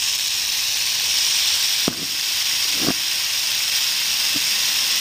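Western diamondback rattlesnake rattling its tail, a steady, unbroken high buzz: the snake's defensive warning. A few faint clicks come through over it.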